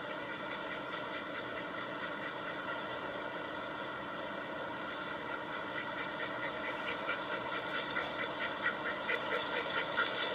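A steady machine-like drone heard through laptop speakers, cut off above the middle pitches. Over the last few seconds a rhythmic pulsing of about three beats a second rises above it.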